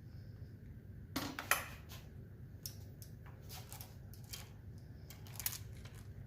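Hand tools clinking and tapping against metal engine parts: a few scattered short clanks and clicks, the loudest about a second in.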